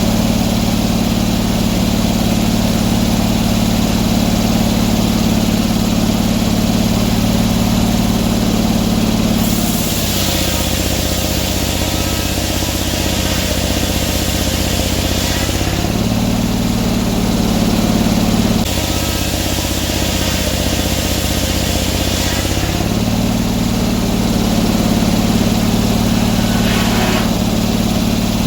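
Portable sawmill engine running steadily. Twice, for about six seconds and then about four, its note drops a little and a loud hiss joins it, as under load while cutting.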